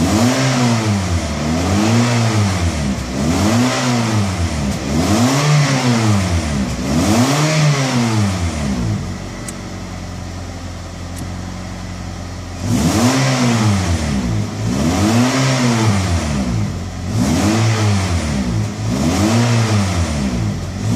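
Car engine revved by blipping the throttle, about one rev a second, each rising and falling in pitch. It drops back to a steady idle for about four seconds midway, then the quick revving starts again.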